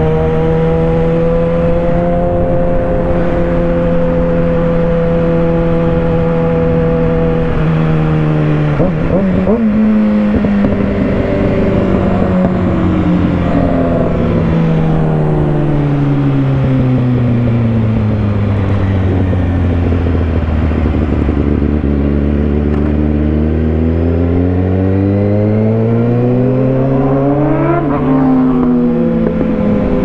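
600-class inline-four sport bike engine heard from the rider's seat: holding a steady pitch at cruise for about eight seconds, then the revs fall slowly for a long stretch as the bike slows, and climb again near the end with a quick dip for a gear change before rising once more.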